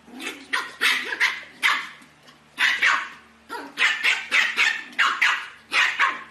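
Puppies at play, one yapping in a rapid series of high-pitched barks, two or three at a time in quick clusters.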